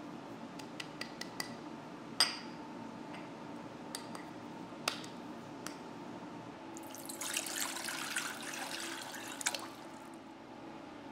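A ramekin tapped over a glass bowl to knock out excess cocoa powder: light clicks and a couple of sharper knocks, the loudest about two seconds in. From about seven seconds in, a few seconds of gritty hiss as the cocoa is shaken out.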